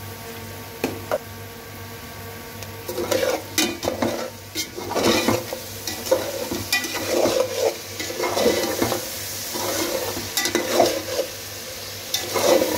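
Chicken and masala frying in ghee in a pan with a sizzle, stirred in repeated scraping strokes that start about three seconds in.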